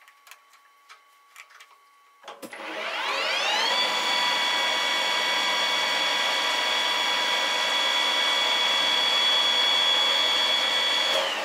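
Precision Matthews PM 1440TL metal lathe spindle starting up about two seconds in, its whine rising in pitch for a second or so, then running steadily at speed with a high whine before slowing near the end.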